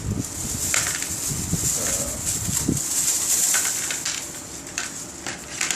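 Thin plastic bags crinkling and rustling as plastic model kit runners are unwrapped and handled, with scattered light clicks and knocks.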